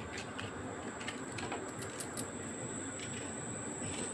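Faint clicks and taps of a small knife cutting green bell pepper into cubes by hand, over a steady high-pitched whine.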